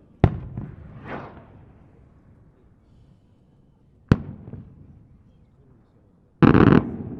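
Fireworks going off: two sharp bangs about four seconds apart, each trailed by rolling echoes, then a dense, loud half-second burst near the end.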